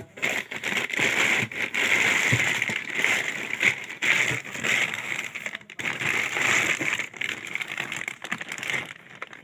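Clear plastic bag crinkling and rustling as it is pulled open by hand from around a loudspeaker, with short pauses about six and seven seconds in.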